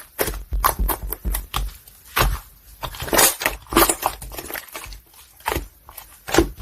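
White mochi-style slime being squeezed and pressed by hand, its trapped air bubbles popping and crackling in irregular sticky bursts several times a second, with soft squishing thuds beneath.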